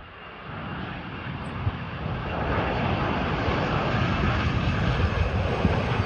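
Embraer 145 regional jet's twin Rolls-Royce AE 3007 turbofans on final approach, a steady jet rush that grows louder over the first few seconds as the plane nears, then holds, over an uneven low rumble.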